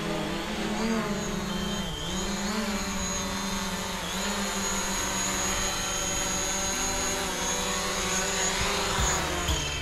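Quadcopter drone's propellers whining steadily with several layered pitches that waver as it manoeuvres, gliding upward about nine seconds in.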